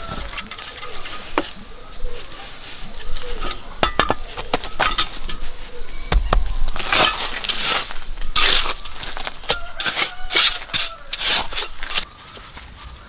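Irregular clinks and knocks of small hard objects being handled, with several short scraping rustles between about seven and twelve seconds in.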